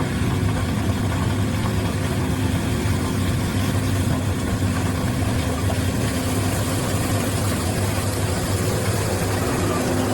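An engine running steadily at constant speed: an even low hum under a dense mechanical clatter and hiss.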